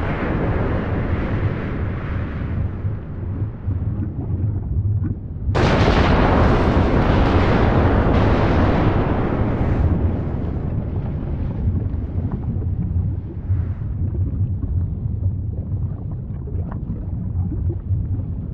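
Volcanic eruption rumbling with a deep, continuous roar. About five and a half seconds in, a sudden louder blast breaks out and fades slowly over several seconds.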